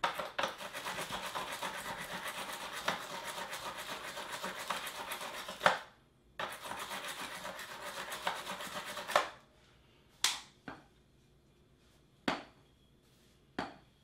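Steel wire brush scrubbing rapidly back and forth on a metal charging contact of a robot vacuum's charging dock, scouring off stubborn buildup from a fouled contact. The scrubbing pauses briefly about six seconds in, runs about three seconds more and stops, and a few light knocks follow near the end.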